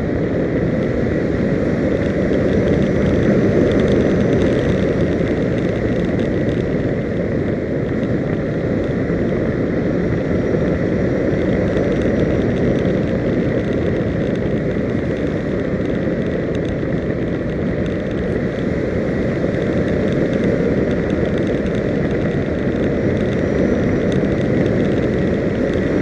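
Steady wind rush and road noise on the microphone while riding along at speed. The rush is deep and dense, with a faint steady high whine above it.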